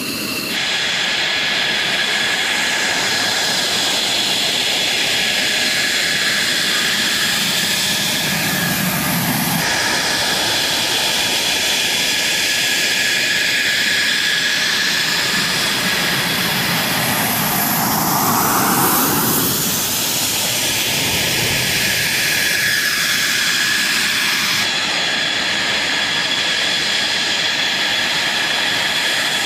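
Jet engine running steadily with a high-pitched whine over a loud rush, swelling briefly about two-thirds of the way through; the sound shifts abruptly twice where the footage is cut.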